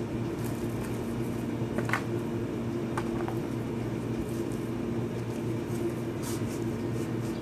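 A steady low machine hum, like a room air conditioner or fan running, with a few faint rustles and light clicks of the phone's packaging being handled, about two and three seconds in and again near the end.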